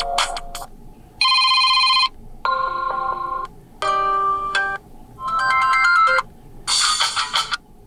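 Six short electronic melodies and chimes from the Oukitel OKT1 phone's preset sound list, played one after another. Each lasts about a second and several cut off abruptly before the next begins: presets being previewed in turn.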